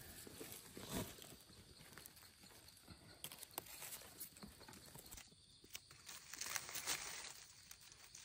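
Footsteps and hands in dry forest leaf litter: scattered crackles and snaps of dry leaves and twigs, with a louder knock about a second in and a busier stretch of crackling near the end.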